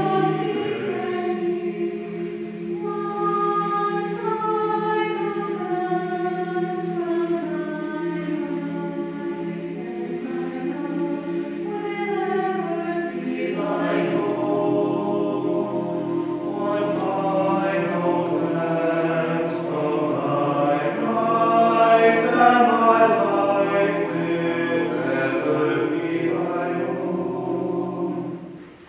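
Mixed choir singing slow, sustained chords, upper voices moving over held lower notes. It swells louder about two-thirds of the way through, then breaks off briefly at the very end.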